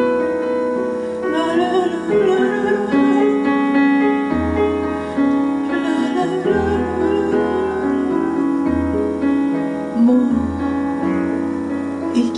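Piano playing a slow chanson accompaniment, with deep bass notes struck about every two seconds from about four seconds in.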